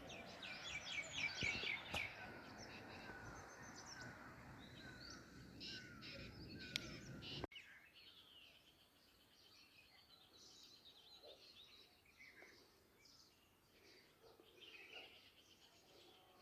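Several birds chirping and singing faintly over a low outdoor hiss, with a quick run of repeated notes in the first two seconds. About halfway through, everything drops suddenly quieter, leaving fainter scattered chirps.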